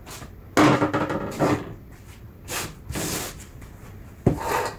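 A file being stroked by hand across the cutters of a chainsaw chain during sharpening: about five short scraping strokes at uneven intervals, with pauses between them.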